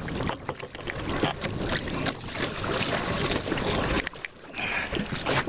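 Rumbling noise and handling on the microphone with scattered knocks and clatter from the small boat being paddled, briefly quieter about four seconds in.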